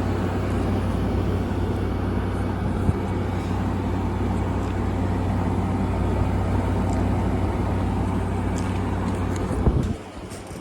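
2016 Frigidaire window air conditioner running: a steady rush of fan air over a constant low hum. Near the end a short clunk, then the sound drops sharply to a quieter steady hum.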